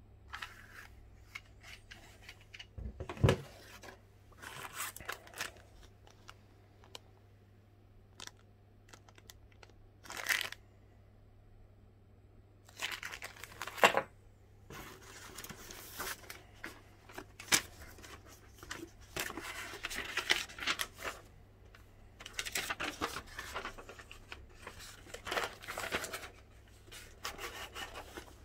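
Packaging being torn open and handled: irregular rustling and tearing, with a few sharp knocks, including a thump about three seconds in.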